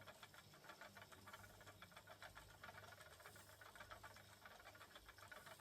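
Spinning wheel running as yarn is spun, a faint, rapid ticking.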